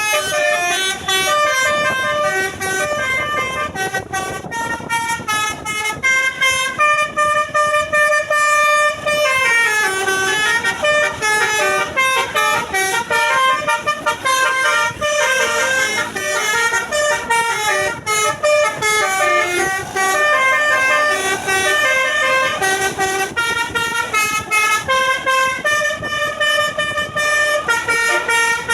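A bus's telolet horn playing a tune nonstop: a fast run of short, loud horn notes stepping up and down in pitch, several horn tones sounding together.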